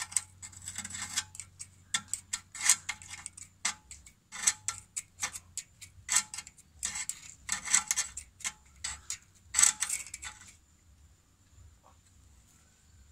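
Thin flat-blade screwdriver scraping and tapping at a worn kick-start shaft oil seal in a two-stroke engine's casing to prise it out: irregular metal clicks and scrapes that stop about ten seconds in.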